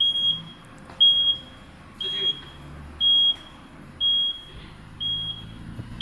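The aftermarket power tailgate on a 2017 Mazda CX-5 closing under power. Its warning buzzer gives a short, high beep about once a second while the tailgate is moving, over a faint low hum of the drive motor.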